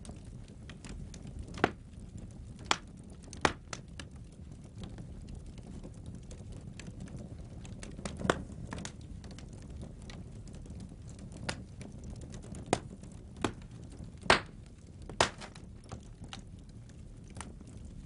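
Wood fire burning in a fireplace, crackling with scattered, irregular sharp pops over a low steady background from the flames. The loudest pop comes about fourteen seconds in.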